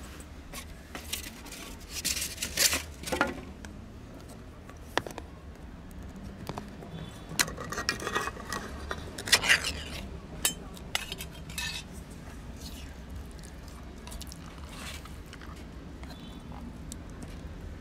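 Clinks, clicks and scraping from a metal tin of wet cat food being handled, opened and spooned out into foam trays. The sounds come in bunches, the loudest about two to three seconds in and again from about seven to eleven seconds in, with fainter scrapes later.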